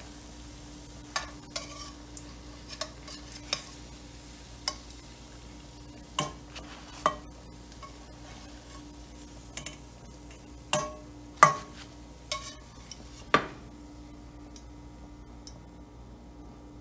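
A metal spatula and fork knock and clink against a steel frying pan as fried banana patties are lifted out of the oil, about a dozen irregular strikes with the loudest about halfway through. Under them, oil sizzles faintly and a low hum runs steadily.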